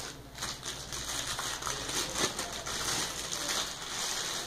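Cardboard packaging rustling and scraping, with many small taps and clicks, as hands handle an opened laptop box and its contents.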